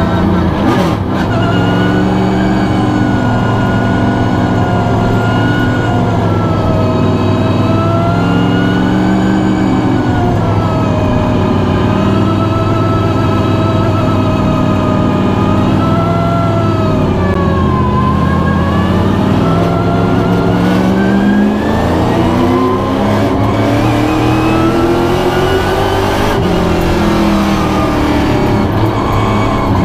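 Pro stock race car's V8 engine heard from inside the cockpit at racing speed, its pitch rising and falling again and again as the driver accelerates down the straights and lifts off into the turns.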